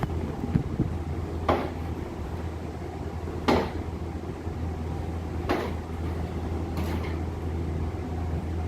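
Sharp knocks or clicks from repair work on a scooter, four of them about two seconds apart, over a steady low hum.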